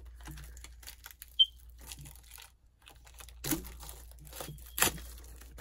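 Plastic wrapping on a skincare bottle crinkling and tearing as it is worked open by hand, with two louder rustles about three and a half and five seconds in.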